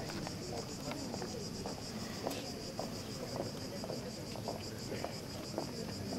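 Marching footsteps, high heels clicking irregularly on asphalt several times a second, over a steady, pulsing high chirring of insects.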